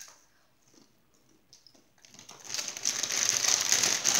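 Faint crunching of a tortilla chip being chewed, then, from about halfway, the plastic Doritos chip bag crinkling loudly as it is handled and crumpled.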